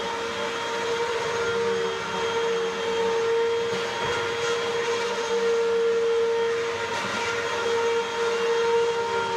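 Bagless upright vacuum cleaner running steadily with a constant whine, loud, its dust canister nearly full.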